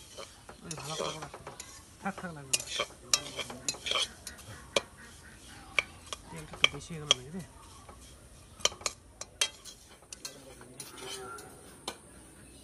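Metal spatula stirring vermicelli frying in oil in a metal kadai: repeated sharp scrapes and clinks against the pan, over a sizzle of hot oil. The scrapes come thick and fast at first and thin out in the last few seconds.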